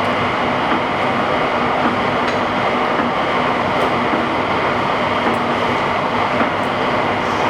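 National LB 32" x 120" hollow-spindle oil-field lathe running under power, its 20 HP main drive and geared headstock turning the spindle with a steady mechanical whir and hum that stays even throughout.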